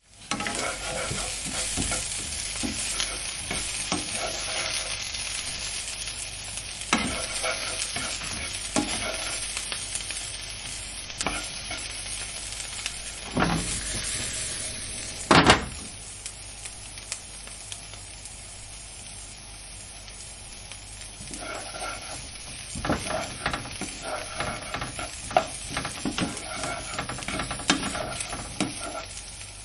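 Vegetables sizzling in a frying pan, a steady hiss with scattered pops and clicks. A loud knock comes about halfway through, and a run of clattering strokes in the last third.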